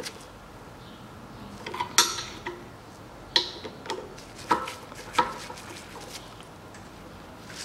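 Screwdriver clicking and clinking against the terminal screws of an air compressor's pressure switch, a handful of sharp metal taps, the loudest about two seconds in.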